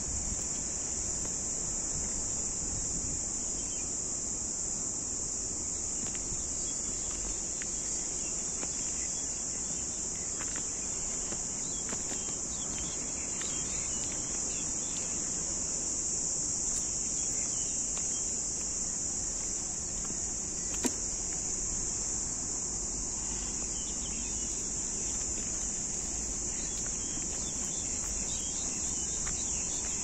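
A steady, high-pitched insect drone with no breaks, over a low background rumble. There is a single sharp click about two-thirds of the way through.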